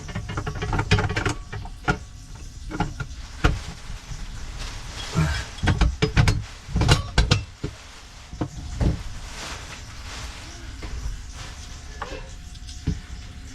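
Irregular clicks, knocks and handling noises from hands working plastic and metal fittings, with a few heavier knocks about halfway through.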